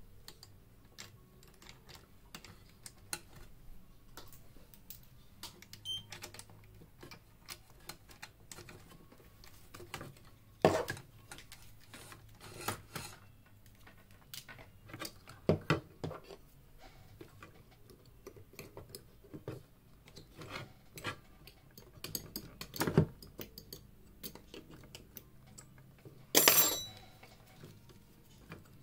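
Scattered light clicks and taps of small tools and parts being handled while a studio monitor is taken apart, with a few louder knocks and, near the end, a longer metallic clatter that rings briefly.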